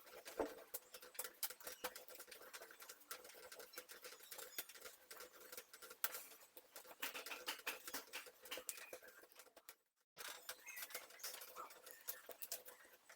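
Hands kneading soft, sticky bread dough: faint, quick, irregular clicks and pats. The sound cuts out completely for a moment about ten seconds in.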